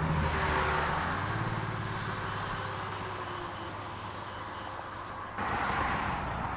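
A motor vehicle going past on the road, its engine hum and tyre rush fading as it moves away. About five seconds in, a second burst of road noise starts suddenly.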